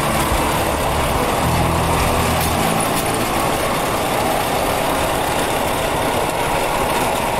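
Engine of a small vehicle running steadily while riding, mixed with road and wind noise on the microphone, with a low engine hum that swells briefly about two seconds in.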